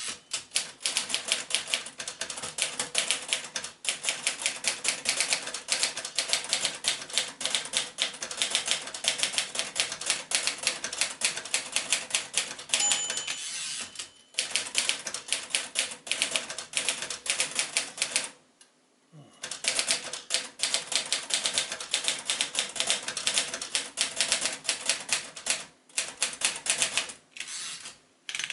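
A 1939 Royal Aristocrat portable typewriter typed on at a steady, brisk pace: rapid key and typebar clacks, broken by a few short pauses and one of about a second two-thirds of the way through. Near the middle a single short ding sounds, the typewriter's margin bell.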